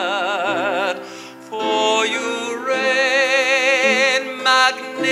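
A male soloist singing a slow worship song over instrumental accompaniment, holding notes with a wide vibrato. The held note ends about a second in, and after a short softer gap another long vibrato note follows.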